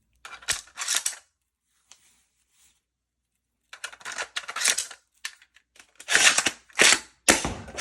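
Spring Thunder shell-ejecting toy blaster being worked and fired: groups of sharp plastic clacks and snaps, in three bursts, the last and loudest starting about six seconds in.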